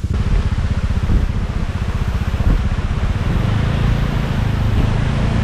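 Motorcycle engine running at low speed as the bike rolls through a shallow river ford, its note settling to a steady low hum about three seconds in, with a steady hiss over it.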